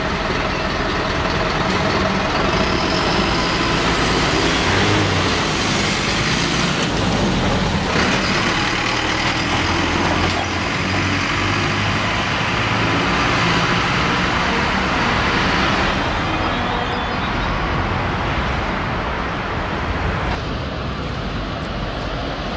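Diesel engine of an Alstom Coradia LINT 41 (class 648) railcar running steadily as the unit moves slowly through the depot. The sound is steady and eases a little in the last few seconds.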